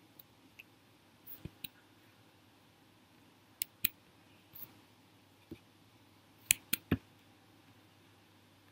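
Computer mouse clicking: about a dozen short, sharp clicks at irregular intervals, the loudest three in quick succession about six and a half to seven seconds in.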